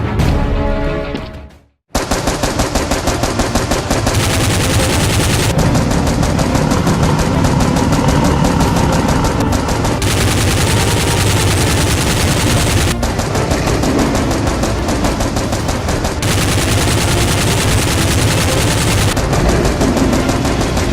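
Music fades out to a brief silence, then about two seconds in continuous rapid automatic gunfire starts and runs on without a break: a dubbed machine-gun sound effect.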